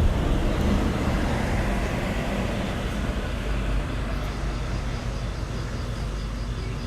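Road traffic noise: a steady rumble and hiss of vehicles, loudest at first and easing off as it goes.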